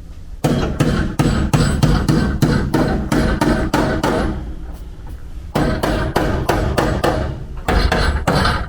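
Body hammer rapidly striking a Toyota Sienta's steel body panel, about four sharp metallic blows a second, beating out collision damage. The blows pause briefly about four seconds in, then resume.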